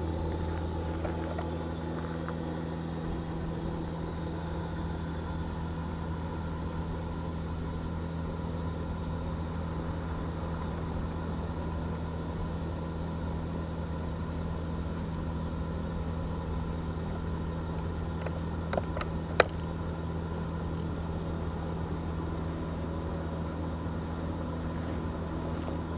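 Steady mechanical drone of the Ekomobiili wood gasifier's heat-up fan running at constant speed, a hum with several steady overtones, while the gasifier warms up and its gas starts to burn at the igniter. A single sharp click about nineteen seconds in.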